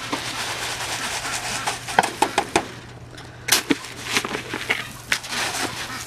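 Dry grain poured from a plastic scoop into a plastic feed bowl, a rattling hiss, followed by a run of sharp clicks and knocks about two seconds in.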